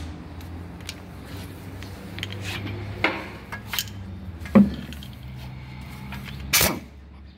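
Metal clinks and knocks of a socket and pneumatic impact wrench handled against the steel of a Toyota Coaster's front brake assembly, over a steady low hum. There are several separate knocks, the loudest about four and a half seconds in, and a short louder burst near the end.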